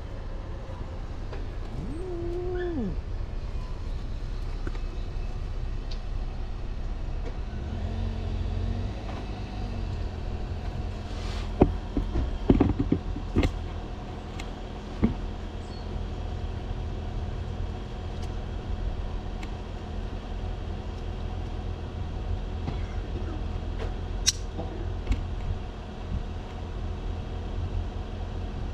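A tortoiseshell stray cat meows once about two seconds in, a short call that rises, holds and falls, and gives a lower call around eight seconds, over a steady low rumble. A few sharp clicks or knocks around twelve to thirteen seconds are the loudest sounds.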